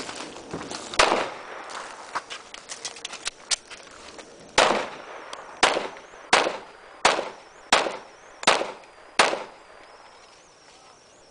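Handgun shots on an outdoor range: one shot about a second in, then a string of seven shots at a steady pace of about one every 0.7 seconds, each a sharp crack with a short echo.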